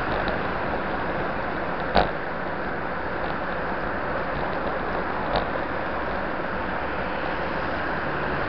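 Steady rush of wind and road noise from a bicycle ridden at speed, with a sharp knock about two seconds in and a smaller one about five seconds in.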